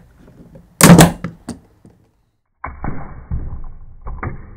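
A 3D-printed plastic clamp connector snapping apart under the pull of ratcheting bar clamps: one sharp, loud crack about a second in, with a few quick clicks after it, as the print splits along its layer lines. From about two and a half seconds in, a duller, muffled run of knocks and thuds follows.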